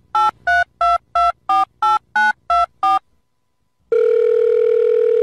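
Telephone keypad tones: ten quick two-note beeps, about three a second, like a number being dialled. About four seconds in, a long steady phone tone follows.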